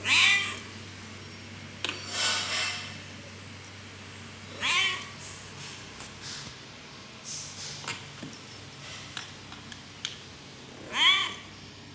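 Young orange-and-white cat meowing loudly four times, most of the calls falling in pitch, with the second one rougher and less clear. The meows are angry protests at being handled.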